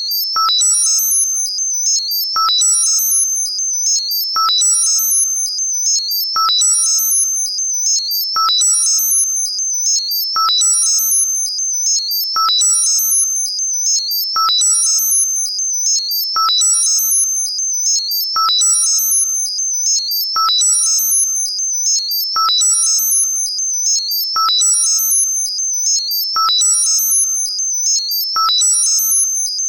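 Synthesized high-pitched tinnitus-masking sound, modulated in a cycle that repeats about every two seconds. A steady high tone runs under clusters of shimmering high tones, and each cycle opens with a short lower ping that quickly fades.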